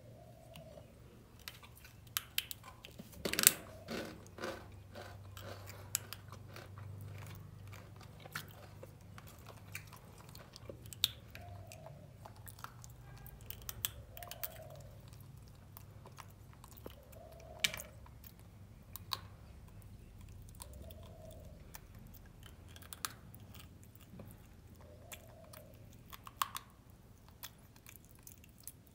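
Baby macaque chewing and crunching peanut candy. Scattered sharp crunches and clicks, with the loudest burst of crunching about three seconds in.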